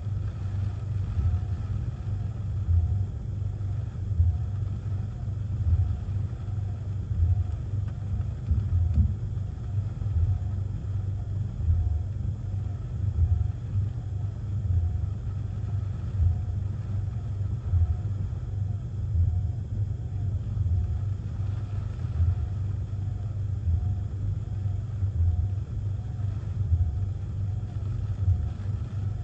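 Gusty hurricane wind and rain heard from inside a car cabin as a low, uneven rumble. Windshield wipers sweep across the wet glass, with a faint repeating sound a little more than once a second.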